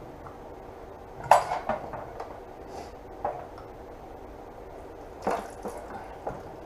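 Metal clinks and clanks of tools and engine parts being handled while a Honda GL1500 Gold Wing cylinder head is taken off: a sharp clank about a second in, a few lighter knocks after it, and another cluster of clinks about five seconds in.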